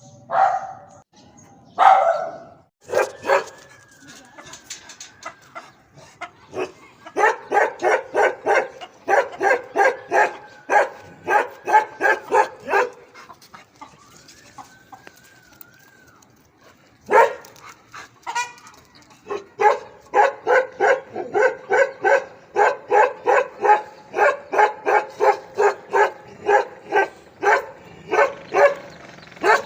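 A dog barking hard. There are a few loud single barks near the start and another partway through, and two long runs of rapid barks at about three a second, one lasting about six seconds and one running on to the end.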